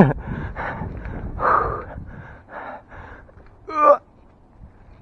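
A man breathing hard in quick, audible breaths, about two a second, with a short voiced groan near four seconds in. A low rumble sits underneath in the first half.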